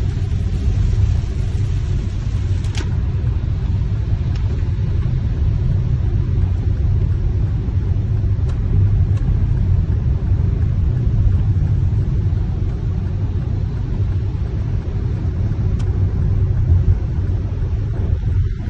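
Steady low rumble of road noise inside a moving car's cabin, tyres running on a wet road, with a few faint ticks.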